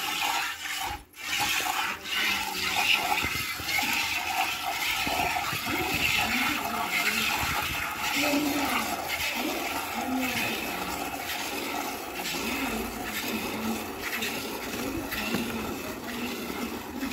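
Buffalo being milked by hand: squirts of milk hissing into a steel bucket, in a steady rhythm.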